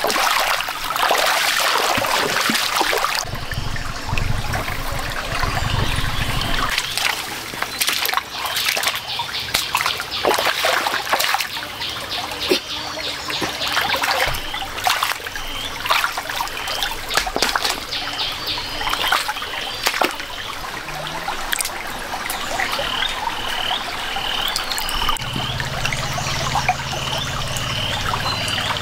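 Water trickling and splashing, with many short splashes throughout. Near the end, a run of short, high chirps repeats two or three times a second.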